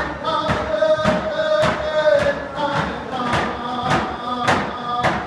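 Round dance song: a hand drum beats a steady pulse, a little under two strikes a second, while voices sing long held notes over it.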